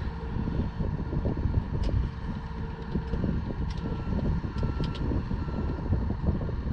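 Steady low machine rumble, with a few faint light clicks from hand tools as a hydraulic fitting with a new O-ring is tightened down.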